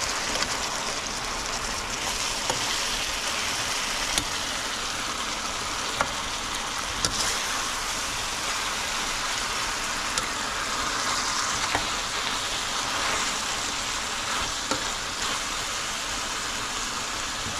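Chicken adobo sizzling steadily in a frying pan of soy-vinegar sauce. A metal spoon stirs it, with sharp clicks now and then as the spoon strikes the pan.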